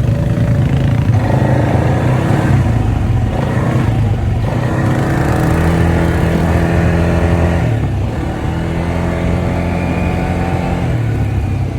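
ATV engine running under way, a steady engine note whose pitch shifts about four seconds in and again near eight seconds as the throttle changes.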